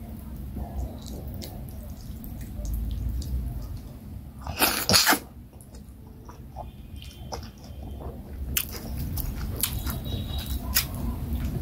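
Close-miked mouth sounds of eating fufu and vegetable soup by hand: soft wet clicks and chewing, with one loud wet mouth sound about five seconds in.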